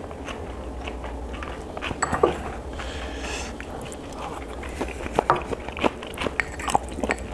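Close-miked chewing and eating, with scattered small clicks and mouth smacks, loudest about two seconds in and several times between five and seven seconds, over a low steady hum.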